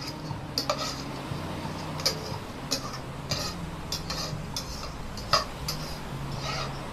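A spoon clinking and tapping against a ceramic cup as rice is knocked out into the pan: a string of short, irregular sharp clicks, the loudest about five seconds in.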